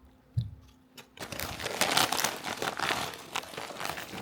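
Lay's potato chip bag being handled, its plastic crackling and crinkling loudly for about three seconds, after a short low thump about half a second in.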